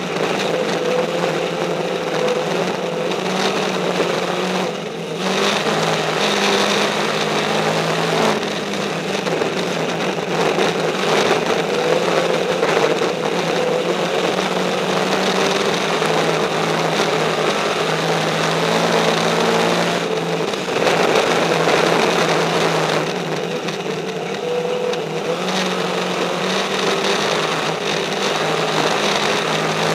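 Dirt-track race car's engine heard from inside the cockpit, running hard under racing load with loud wind and rattle. The engine note eases off briefly and picks back up several times.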